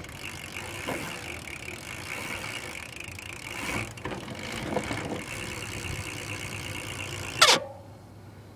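Stock rear hub of a BMX bike ratcheting as the back wheel freewheels, a steady fast clicking buzz. Near the end it is cut off by a single sudden loud noise.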